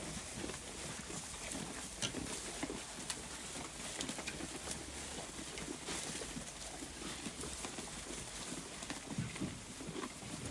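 A flock of sheep grazing: grass being torn and chewed in many irregular, overlapping crunches and clicks.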